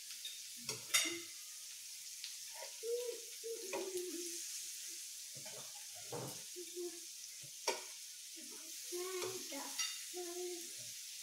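Beef and salmon sizzling on the griddle plate of a raclette grill, a steady hiss, with forks clicking against the plate and dishes, the sharpest clicks about a second in and near eight seconds.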